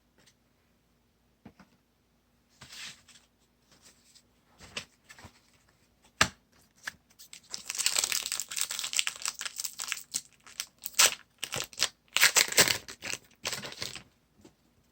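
Baseball card pack wrapper being crinkled and torn open: a few light clicks and rustles, then a dense run of crackling from about seven seconds in that stops shortly before the end.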